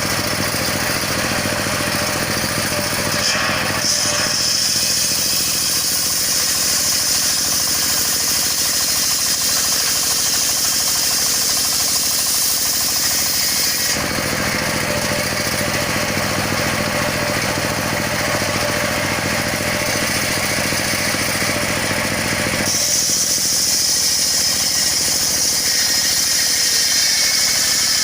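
Engine-driven circular sawmill running steadily, its blade cutting through a log with a loud high hiss from about three and a half seconds in to about fourteen seconds in. The hiss drops away while the engine runs on, then the cut starts again about twenty-three seconds in.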